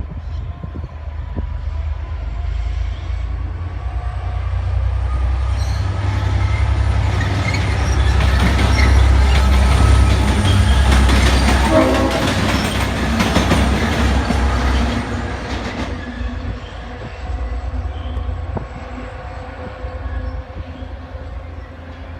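V/Line N class diesel-electric locomotive running light engine past: its deep engine note builds as it approaches, is loudest about halfway through, then fades as it moves away. Its wheels click over rail joints as it goes by.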